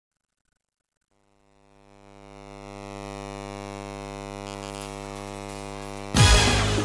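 A steady electronic hum, a low tone with many overtones, fades in after about a second of silence and holds. About six seconds in, loud music cuts in suddenly over it.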